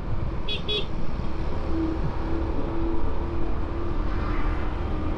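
Steady wind and engine rumble from riding a Honda Supra X125 FI motorcycle, with two short, quick horn beeps about half a second in.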